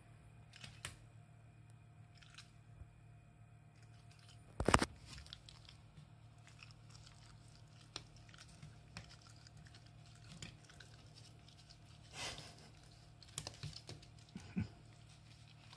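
Shiba Inu gently mouthing and nibbling a person's hand, with small scattered clicks and taps over a low steady hum. A single sharp knock about five seconds in is the loudest sound, and a brief rustle comes near the end.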